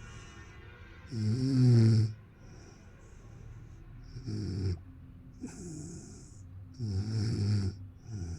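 Snoring in sleep: repeated low buzzing snores with hissing breaths, the loudest about a second in and more coming every second or two after the middle.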